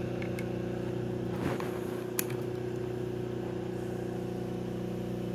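Home-built generator test rig running: the motor-driven rotor with ferrite rings spinning at a steady speed, giving a constant hum of several tones. A single sharp click sounds a little over two seconds in.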